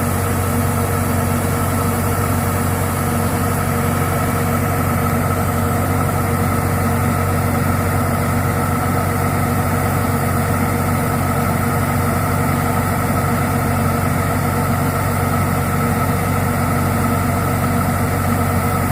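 Combine harvester's diesel engine running steadily at constant speed, a loud even hum.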